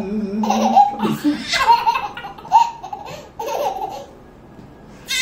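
A toddler laughing in a string of short, high giggles, dying away about a second before the end.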